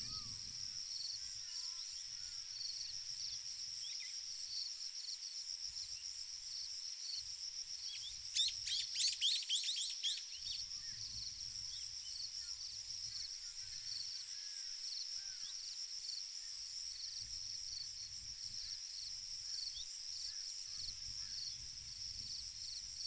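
Steady high-pitched chorus of insects, a shrill drone with a regular pulsing beat. A small bird twitters in a quick burst of chirps near the middle.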